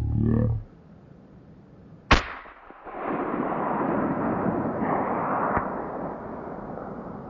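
A wounded bull moose groans briefly, then a single rifle shot cracks about two seconds in, followed by several seconds of rough, rushing noise.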